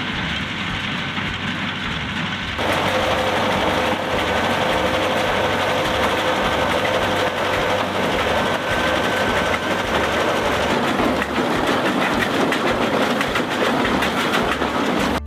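A tractor running a square baler in the hay, a steady mechanical clatter over a rhythmic low thumping. It gets a little louder and brighter about two and a half seconds in.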